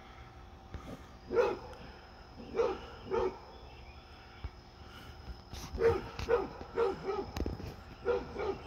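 Basset hound barking at a deer it wants to play with: three spaced barks in the first few seconds, then a quicker run of about six barks in the second half.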